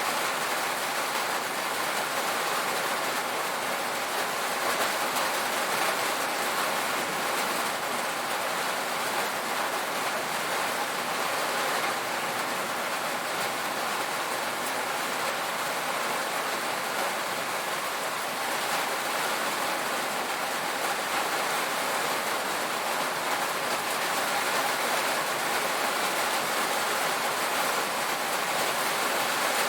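Steady rain drumming on a tin roof, a dense even patter without letup.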